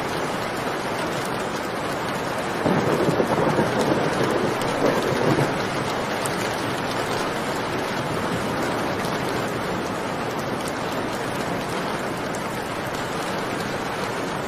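Steady heavy rain with a roll of thunder that swells up about three seconds in and rumbles for a couple of seconds before fading back under the rain.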